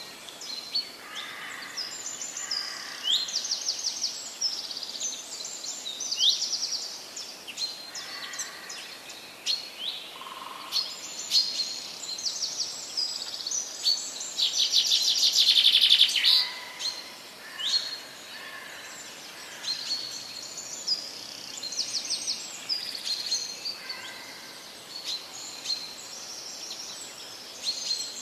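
Several songbirds singing and calling at once, a chorus of overlapping high chirps, whistles and short trills, with a few softer, lower notes. About halfway through, one bird gives a loud, rapid trill lasting about two seconds.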